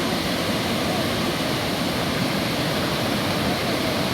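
Waterfall pouring into a pool, a steady, dense rush of falling water.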